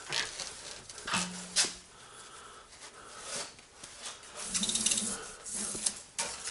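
Spiral metal armour of BX cable scraping and rubbing as the insulated copper wires are pulled out of it by hand, with a few sharp clicks and knocks along the way.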